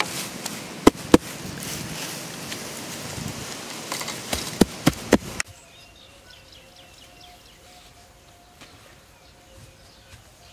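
Loose dry soil being scooped and scattered by hand, a gritty rustling with a few sharp clicks of clods and pebbles landing. About halfway through it stops abruptly, leaving faint outdoor background with light chirping.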